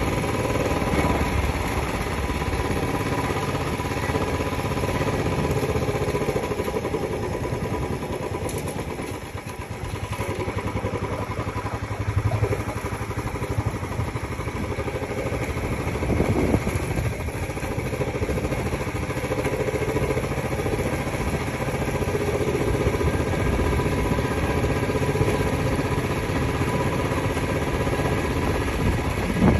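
Motorcycle engine running steadily while riding, a low rumble that goes quieter for a moment about a third of the way in.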